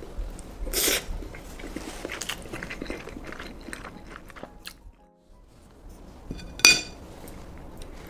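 Someone eating garlic fried rice close to the microphone: irregular chewing and crunching. Near the end comes one sharp metallic clink, the loudest sound.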